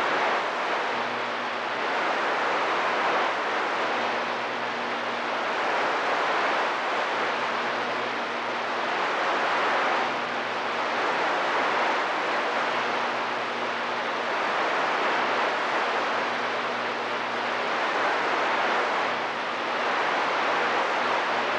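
CB radio receiver hissing with static on an open, quiet channel. The hiss swells and eases every couple of seconds, and a faint low hum comes and goes under it.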